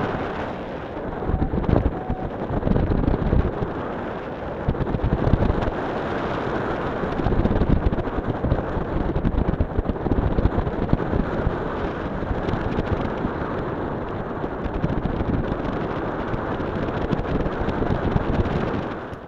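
Airflow rushing and buffeting over the camera microphone of a paraglider in flight, a dense, gusting wind noise.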